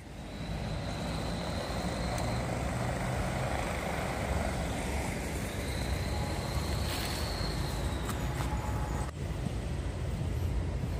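Steady low rumble of a vehicle in motion, heard from on board, with a faint thin high whine now and then.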